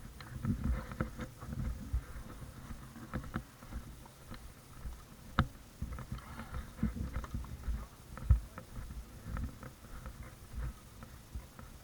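Irregular knocks, clicks and rustling close to the microphone, like gear being handled or someone moving about, with a sharper click about five and a half seconds in and a low thump a little after eight seconds.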